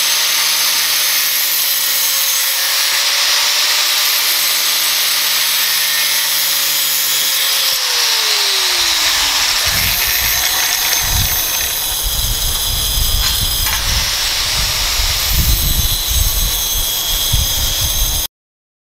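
Angle grinder cutting thin-walled steel square tube with a cut-off wheel: a steady, high-pitched grinding hiss. About eight seconds in, a motor tone falls in pitch as a grinder spins down, and low rumbling comes in under the grinding. The sound cuts off abruptly near the end.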